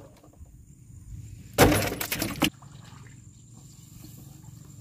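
A metal-frame netted fish trap being heaved aside, its frame clattering in one loud rattling crash about a second and a half in that lasts just under a second, over a faint low background.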